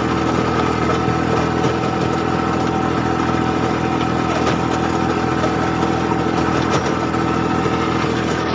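Kubota 27 hp compact tractor's diesel engine running at a steady speed, heard close up from the driver's seat.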